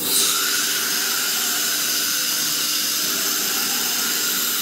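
CNC router spindle cutting the wood panel with its third tool: a loud, steady high hiss that starts abruptly and cuts off after about four and a half seconds.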